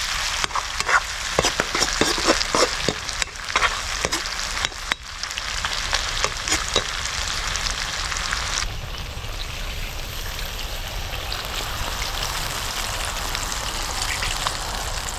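Pork sizzling as it fries in a pan, with a utensil stirring and scraping against the pan through the first five seconds or so, then a steady sizzle.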